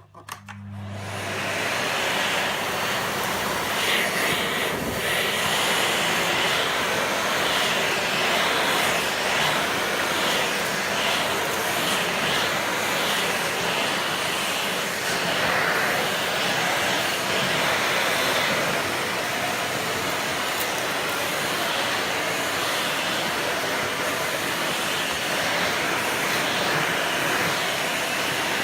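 Miele Compact C2 PowerLine bagged cylinder vacuum cleaner switched on. Its motor spins up over the first couple of seconds, then runs steadily with a loud rushing of suction as it vacuums a hard floor.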